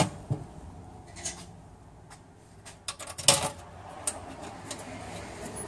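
Scattered light metallic clicks and clinks as the transmission oil pan bolts are handled and started in by hand. The sharpest click comes a little over three seconds in.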